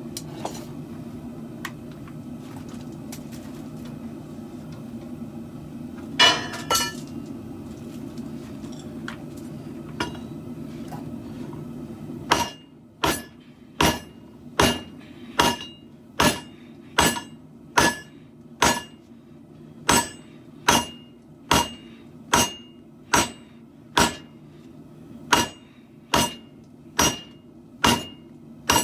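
Hand hammer striking hot steel on an anvil while forging a katana blank: a steady run of ringing blows, a little more than one a second, that starts about twelve seconds in. Before the hammering there is a steady low hum and a brief metallic clank.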